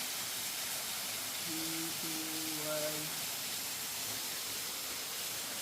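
Steady rushing of a waterfall, heard as an even hiss. A faint voice sounds briefly in the middle.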